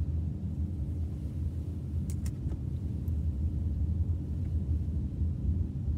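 Steady low rumble of a car driving, heard from inside the cabin, with engine and tyre noise. A few faint clicks come about two seconds in.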